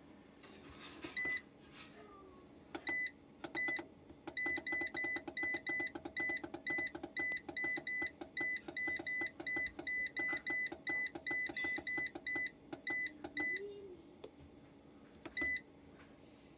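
Effekta AX M2 hybrid inverter's control panel beeping with each button press: a few single short high beeps, then a quick run of about three a second as the arrow key steps a setting value up, and one more single beep near the end.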